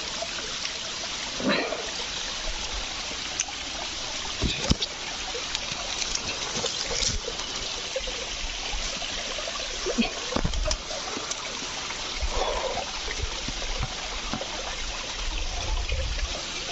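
Water trickling steadily among rocks, with scattered short taps and knocks and a few brief low rumbles in the second half.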